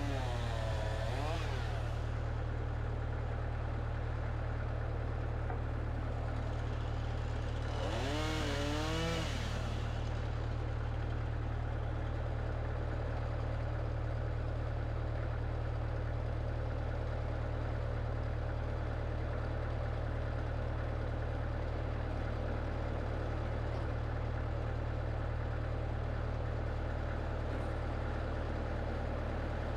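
Wood-Mizer LX25 sawmill's engine running steadily at an even level, with a brief wavering whine that rises and falls about a second in and again about eight seconds in.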